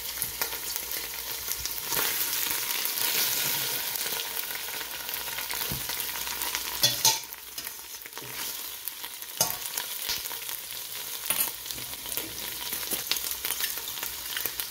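Chunks of yellow onion sizzling in hot olive oil in a stainless steel stockpot, with a spatula scraping and knocking against the pot as they are stirred. The loudest knock comes about seven seconds in.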